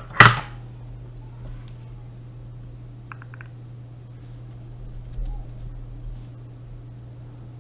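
An EEPROM chip being taken out of a programmer: a sharp snap just after the start, then faint scattered clicks of the small part being handled, over a steady low hum.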